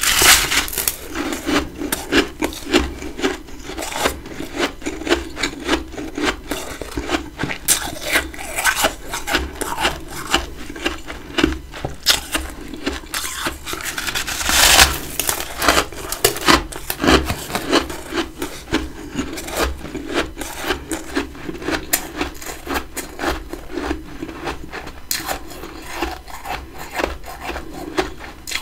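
Close-up chewing and crunching of big chunks of freezer frost, a dense run of crisp crunches and grinding with a louder crunch about fifteen seconds in.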